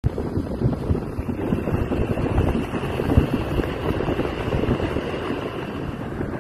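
Wind buffeting the microphone on a moving motorbike, a dense rumbling rush of air and road noise with irregular gusts.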